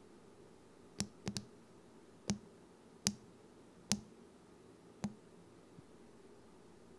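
Galaxy putty slime settling down into its clear plastic tube container, making about seven short, sharp pops at irregular intervals as trapped air escapes around the sides.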